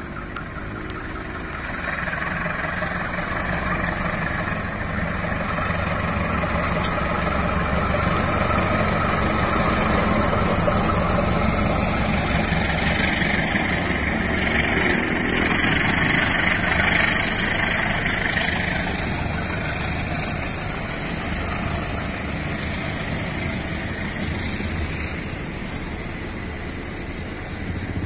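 Diesel-electric locomotive hauling a passenger train as it approaches and passes, its engine running under load, followed by the coaches' wheels rolling over the rails. The sound builds, is loudest a little past halfway as the coaches pass close by, then eases as the train draws away.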